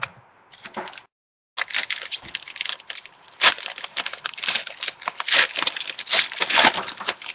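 Wrapper of a trading-card pack being torn open and crinkled by hand: a run of irregular crackling and tearing rustles, starting about a second and a half in.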